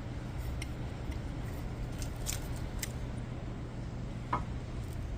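Light metal clicks and taps, a handful of them spread out, as a brake caliper piston depressor tool is fitted against an old pad in the caliper, over a steady low hum.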